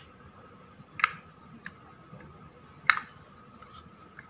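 Sharp clicks of small PVC model parts knocking together as a white interior piece is handled and fitted into a handmade miniature truck cab: two louder clicks about a second and about three seconds in, with a few fainter ticks between and near the end, over a faint steady high hum.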